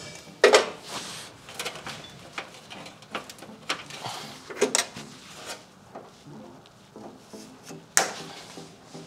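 Irregular clicks and knocks of hand tools and cables being handled during wiring work, with the loudest knocks about half a second in and near the end.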